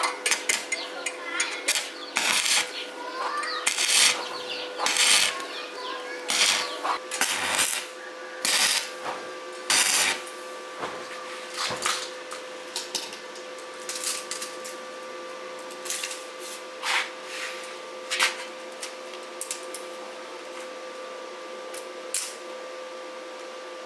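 Irregular metallic clinks and knocks of hand tools working metal parts, frequent at first and sparser after about twelve seconds, over a steady machine hum.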